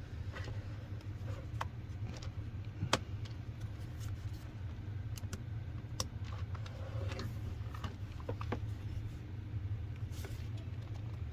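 Scattered light clicks and taps of the plastic housing halves of a cordless tire inflator being fitted back together by hand, over a steady low hum.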